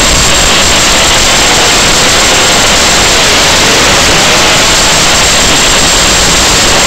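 Loud, steady static hiss from the audio channel of an analog FPV video link on an Eachine Racer 250 quadcopter, with a faint wavering whine under it.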